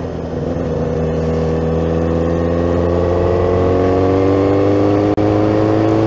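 Honda CBR600 F2's inline-four engine pulling steadily as the motorcycle gathers speed, its pitch rising slowly, with a momentary break in the sound about five seconds in.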